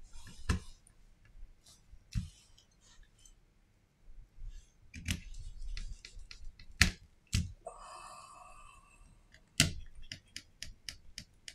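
Small clicks and taps of tools and tiny phone parts being picked up and set down on a silicone repair mat, two of them sharp and loud about seven and nine and a half seconds in. A short steady buzzing tone comes just before the second loud click.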